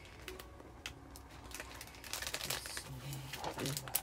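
Craft materials being handled at a desk: light rustling and crinkling with scattered small clicks, busier in the second half.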